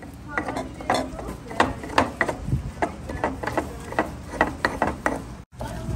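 Irregular clicks, knocks and clatter of objects being handled, with faint voices in the background; the sound cuts out for an instant near the end.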